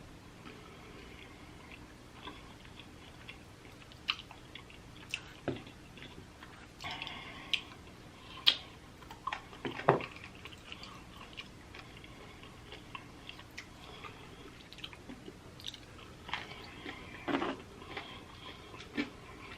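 A person chewing food close to the microphone, with irregular wet smacks and sharp mouth clicks.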